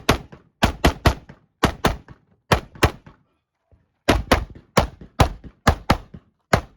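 Semi-automatic rifle fired rapidly in quick pairs and strings of shots, about twenty in all, with a pause of about a second partway through.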